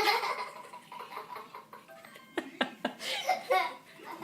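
A sudden loud outburst of breath and voice right at the start, then several short bursts of laughter from about halfway through.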